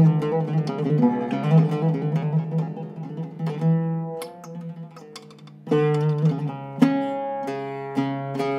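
Zaryab oud with a Canadian cedar soundboard and a maple and wenge bowl, played with a plectrum: a quick run of plucked notes fades to a quiet stretch about four seconds in. A loud struck note at about six seconds starts a new phrase, with another strong pluck a second later.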